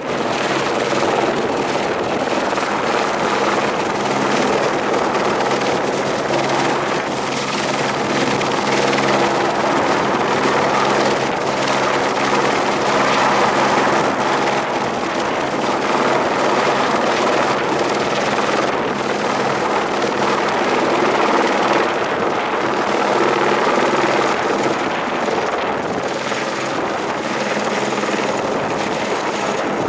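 AS350 Écureuil helicopter running steadily, its rotor and engine making a continuous sound with a thin high whine held above it.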